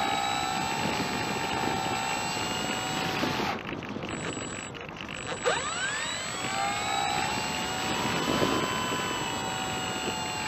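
Multiplex Fun Cub's electric motor and propeller whining steadily in flight, heard on board with airflow hiss. The whine dies away a little over three seconds in as the throttle is cut. About five seconds in it climbs sharply in pitch as the throttle is opened again, then holds steady.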